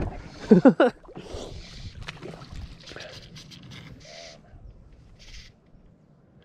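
A short wavering cry from a person about half a second in, then several separate soft hissing swishes, each a fraction of a second long: fly line being stripped in by hand while a hooked trout is played on a fly rod.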